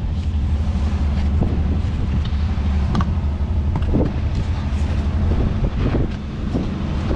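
Vehicle engine running steadily with a low rumble, with a few short knocks or clicks on top of it.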